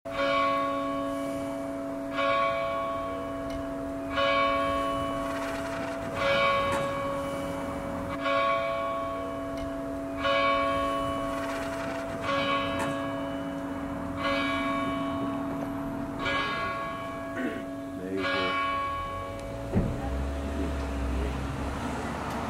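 A tower clock bell striking the hour ten times, one stroke about every two seconds, each stroke still ringing when the next one comes: the bell tolling ten o'clock.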